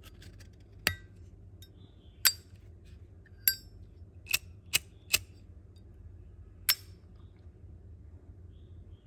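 Brass Zippo lighter lid being flicked open and snapped shut: about seven sharp metallic clinks with a brief ring, unevenly spaced, three of them in quick succession around the middle.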